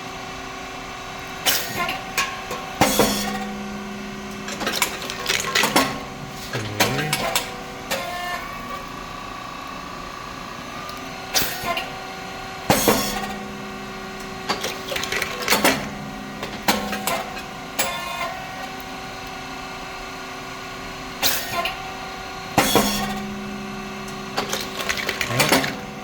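Hydraulic rice cake popping machine running its production cycle: a steady hum from the motor, pump and fan, with a cluster of sharp pops and clacks about every ten seconds as the hot moulds open, the thin rice chips puff, and the feeding plate pushes them out.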